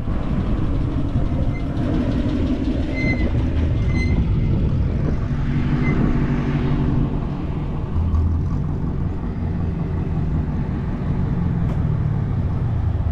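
Ford Mustang GT350's 5.2 L Voodoo flat-plane-crank V8 running, its pitch rising and falling with the revs. The uploader wonders whether it has engine knock.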